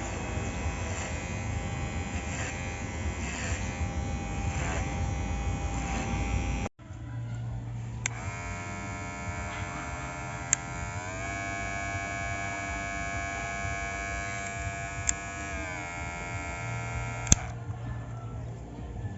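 Ubeator cordless hair trimmer's small electric motor buzzing steadily, in two takes split by a cut about a third of the way through. In the second take the buzz steps up in pitch for a few seconds and then back down, with a few sharp clicks along the way.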